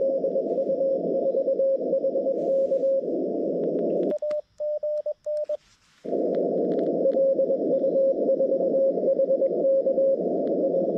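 Morse code (CW) on the Xiegu G90's receiver: filtered band hiss with a station's keyed tone coming through it. A little after four seconds the hiss cuts out and a short burst of the operator's own keyed sidetone is heard. The hiss and incoming code come back about six seconds in.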